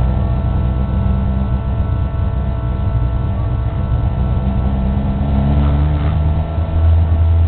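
Race car engine running under load, heard from inside the stripped, roll-caged cabin. The revs climb from about four and a half seconds in, then the note drops to a lower, louder drone near the end.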